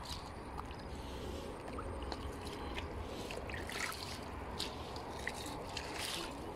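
Small water trickles and splashes in shallow water among floating water hyacinth: scattered light ticks and gurgles over a low steady rumble.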